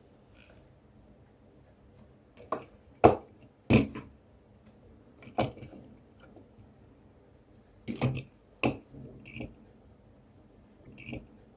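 A scattering of about nine short, irregular clicks and knocks, with no chime.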